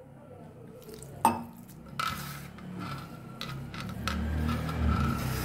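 One sharp clink of a steel tumbler against a glass mixing bowl about a second in. Then hands work flour and bathua greens into dough as water is mixed in: a continuous squishing and rustling with repeated light taps that make the glass bowl ring, growing louder near the end.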